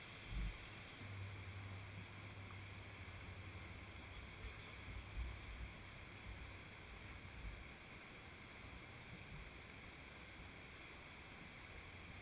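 Very quiet background: a faint steady low hum and hiss, with a few soft low thumps in the first half.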